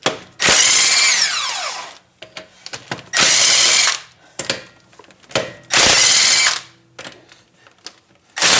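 Impact gun with a 22 mm socket spinning off wheel lug nuts: three bursts of about a second each, the first trailing off in a falling whine as the motor winds down, and a fourth starting near the end. Small clicks of socket and nuts between the bursts.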